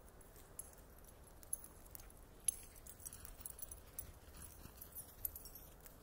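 Wood bonfire crackling: irregular sharp pops and snaps, the loudest about two and a half seconds in.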